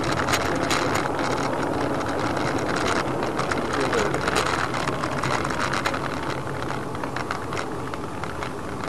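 Vehicle noise: a steady wash of road and engine sound with many small clicks and rattles through it, slowly growing quieter.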